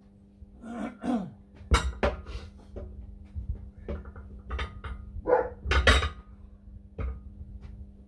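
Sharp metallic clanks and knocks from work on a steel tractor wheel rim and tyre, a dozen or so irregular strikes, mixed with a few calls from an animal.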